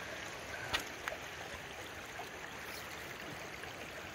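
Shallow, rocky creek trickling steadily over stones, with two short clicks about a second in.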